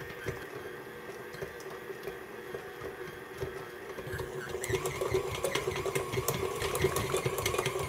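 KitchenAid Ultra Power stand mixer running with a steady motor hum, its flat beater kneading a small ball of oiled dough in a steel bowl. About halfway through it grows a little louder and quick clicking joins in.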